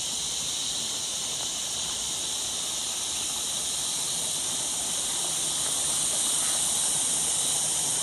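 Chorus of many cicadas: a steady, unbroken high-pitched hiss that swells slightly in the second half.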